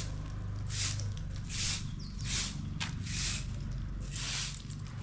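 Grass broom sweeping a brick-paved yard: a scratchy swish with each stroke, about one every three-quarters of a second, over a steady low hum.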